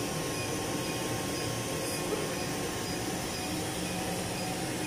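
Steady rushing fan noise with a low hum underneath, like a machine's cooling fan running without a break.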